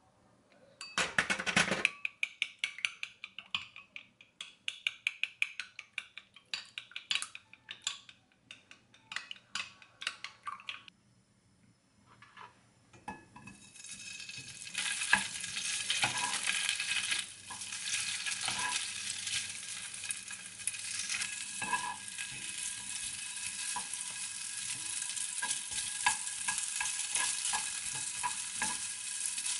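Eggs being beaten in a glass bowl, the utensil clicking quickly against the glass for about ten seconds. After a short pause, crab sticks and ham strips sizzle steadily in an oiled frying pan, with occasional knocks of a wooden spatula in the pan.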